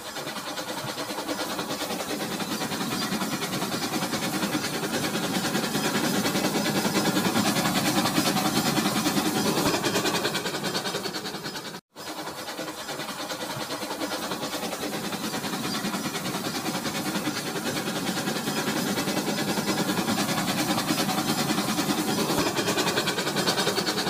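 Battery-powered toy train running on plastic track: a steady whirring rattle of its motor and wheels that grows louder as it nears the microphone and then fades. The sound breaks off briefly about halfway and then builds again.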